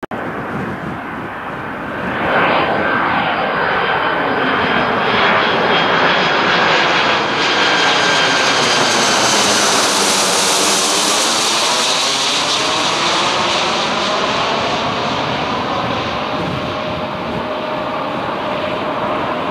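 A Boeing 757-200 freighter's twin turbofan engines on final approach, passing low overhead. The jet noise swells about two seconds in and is hissiest as the aircraft goes overhead around the middle, with a high whine and a sweeping, phasing quality. It eases a little near the end as the aircraft moves off.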